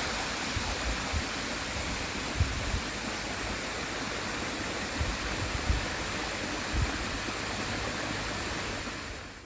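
Small waterfall with a steady, even rush of falling water, fading out near the end. A few short low bumps sit under it.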